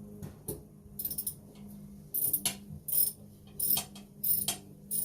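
Ratchet socket wrench clicking in repeated back-and-forth strokes as it loosens a toilet seat's mounting bolt, getting louder and more regular about two seconds in.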